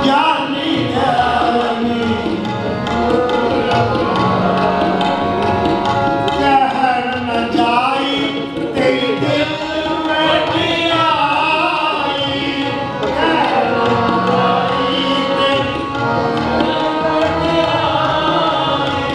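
Sikh kirtan: men singing a devotional hymn to two Yamuna hand-pumped harmoniums and a tabla pair keeping a steady rhythm.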